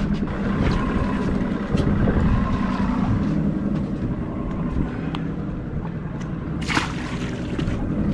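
Motorboat engine running steadily, with wind noise on the microphone and water sounds. About seven seconds in there is a brief, sharp burst of noise.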